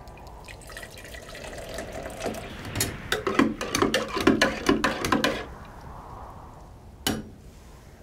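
Hot water poured from a kettle into a metal mug, a soft steady pour for the first couple of seconds. Then a quick run of clinks and knocks as the mug is handled and stirred, and a single sharp click near the end.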